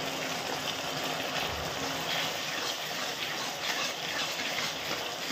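Steady sizzle of shredded chicken and chopped vegetables frying in oil and sauce in a hot kadai, stirred with a spatula.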